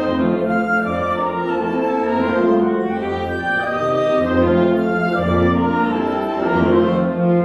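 Instrumental ensemble music: a band playing sustained chords over a low, pulsing bass line.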